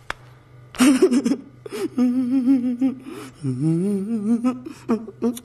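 A man's exaggerated wordless vocalising: a sharp breath about a second in, then two long drawn-out notes with a wobbling pitch, the second rising at its start.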